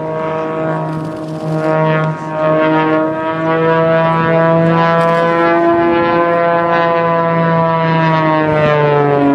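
Propeller-driven airplane flying overhead, a steady droning hum whose pitch wavers slowly.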